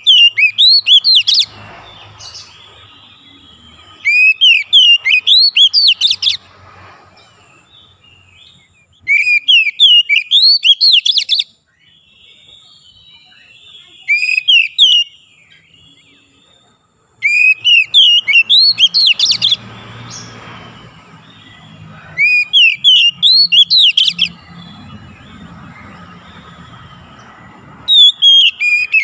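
Oriental magpie-robin (kacer) singing loud phrases of rapid, rising whistled notes, each phrase lasting a second or two. The phrases come every four to five seconds, with short pauses between them.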